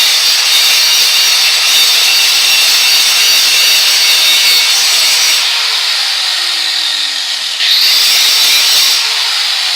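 Angle grinder grinding the underside of a vise. About five and a half seconds in it eases off and the motor's tone slides down as it slows, then about two seconds later it whines back up to speed and grinds on.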